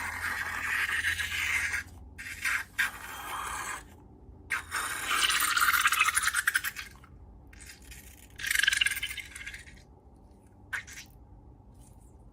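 Slime being handled: several bursts of crackly squishing and rubbing, each a second or two long, with one sharp click near the end.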